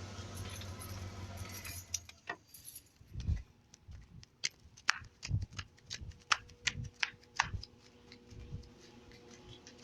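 A steady low hum and hiss that drops away about two seconds in, followed by a run of separate sharp clicks, clinks and knocks, like small hard objects being handled.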